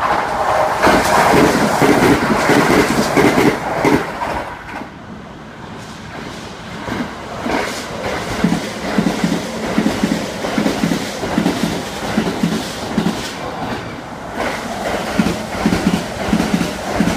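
Kintetsu electric trains passing through a station without stopping. A train on the near track runs past loudly in the first four seconds. From about eight seconds in, trains on the far tracks go by with a steady, rhythmic clickety-clack of wheels over rail joints.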